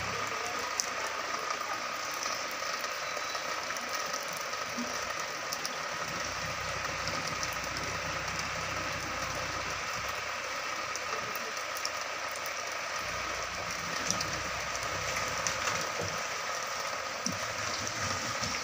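Mahindra Bolero pickup truck's engine running as the truck works its way through deep mud, its low rumble strongest in the middle stretch, over a steady hiss of rain.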